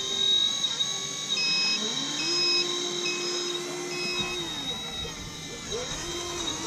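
Radio-controlled truck's electric motor whining, rising in pitch, holding, then falling away, and starting up again near the end. Four evenly spaced short high beeps sound while it runs, over a steady high whine.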